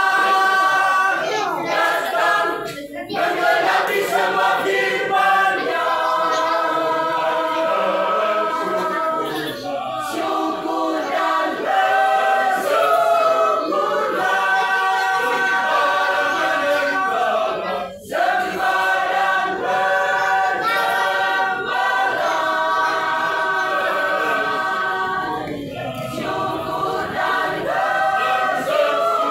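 Mixed choir of men and women singing masamper, the unaccompanied part-song of the Sangihe-Talaud islands, in sustained multi-voice harmony. The singing breaks off briefly twice, about three seconds in and again a little past the middle.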